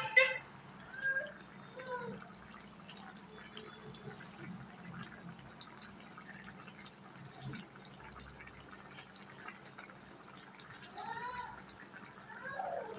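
Ridge gourd and salted fish curry simmering in a pot, with faint scattered bubbling pops. A short faint voice-like sound comes about eleven seconds in.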